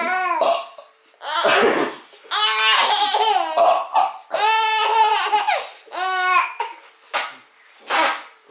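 Baby laughing hysterically in a string of high-pitched bursts with short gasping breaks between them.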